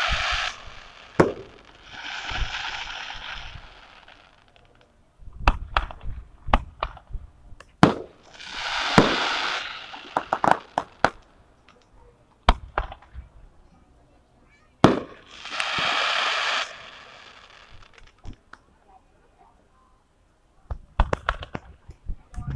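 Aerial fireworks going off: sharp bangs and rapid pops in irregular clusters. Three of the bangs are followed by a second or two of steady hiss. There is a short lull near the end before more pops.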